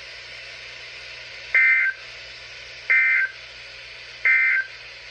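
NOAA Weather Radio sending the SAME end-of-message code: three short, identical bursts of warbling two-tone data, about a third of a second each and about a second and a half apart, over a faint steady receiver hiss. The bursts mark the end of the weekly test broadcast.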